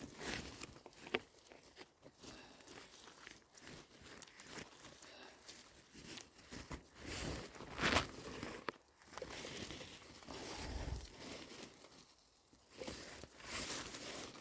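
Irregular rustling, crunching and crinkling, faint and broken by short bursts: mushrooms being picked off the forest floor and put into a bag, with footsteps.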